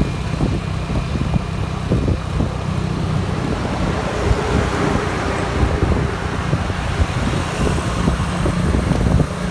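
Motorcycle engine running steadily on the move, with wind and road noise over it.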